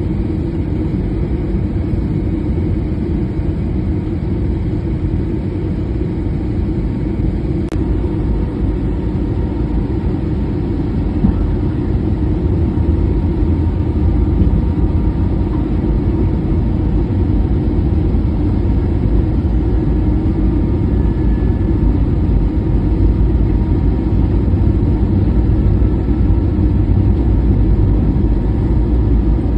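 Steady cabin noise inside an airliner in flight: a constant low rumble of the engines and rushing airflow.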